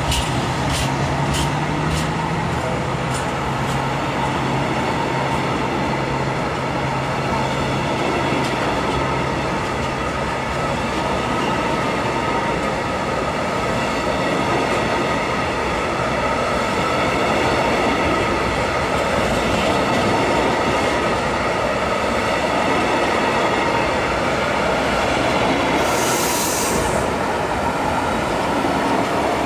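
Freight train of silo tank wagons rolling past on the rails, a steady, loud rumble of wheels on track. Regular clicks of wheels over a rail joint come over the first two seconds, and a brief high hiss comes near the end.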